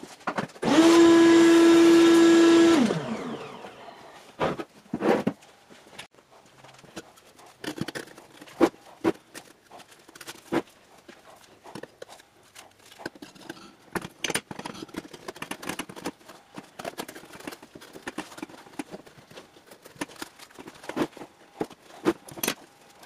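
A small power-tool motor runs at a steady high speed for about two seconds, then winds down, its pitch falling as it stops. Afterward come scattered light knocks and clicks of workpieces being handled on the bench.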